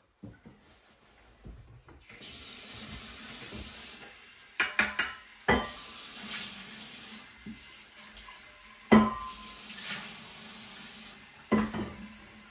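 Water poured into metal cookware, a steady hiss that fades after a couple of seconds, with sharp clanks of metal pots or a kettle, three times, the middle one the loudest.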